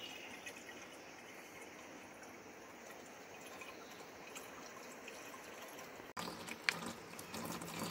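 Water trickling from a plastic spring pipe onto rocks, steady and fairly faint. About six seconds in it changes abruptly to louder water sounds with a few sharp knocks.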